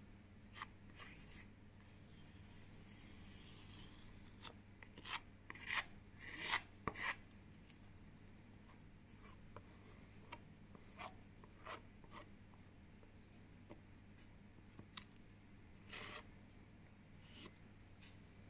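Plastic card scraping and smearing thick acrylic paint across a canvas panel in short, irregular strokes, loudest about a third of the way in and again near the end.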